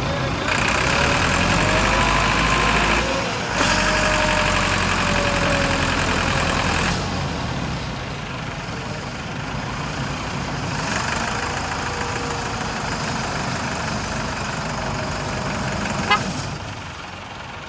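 Tractor's diesel engine running hard under load while towing a pickup stuck in sand, loudest for the first seven seconds with a short dip about three seconds in, then settling to a steadier, quieter run. A single sharp click near the end.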